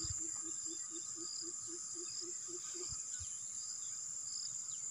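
Steady high-pitched insect chorus. A low call pulses about four times a second and stops about three seconds in, and there are a few low thumps.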